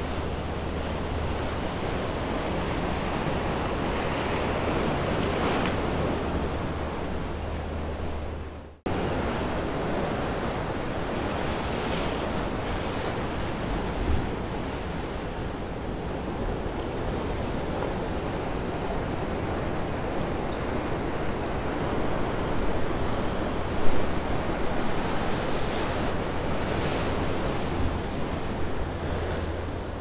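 Ocean surf washing and churning over rocks at the foot of sea cliffs: a steady rush of white water that swells and eases with the waves. It cuts out for an instant about nine seconds in.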